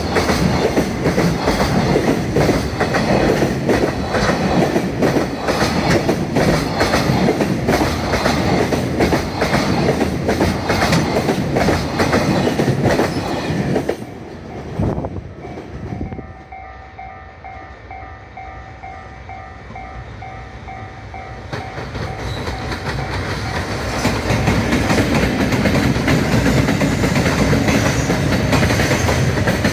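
Freight train running past with wheels clattering over rail joints. About halfway through the train noise falls away and a level-crossing bell dings steadily at about two to three strokes a second, then stops. Another train's rumble then builds and runs past.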